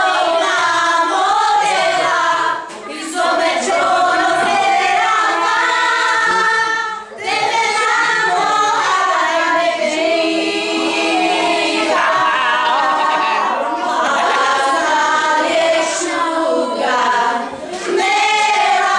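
A group of voices singing a song together without instruments, with brief pauses between phrases about 3, 7 and 17 seconds in.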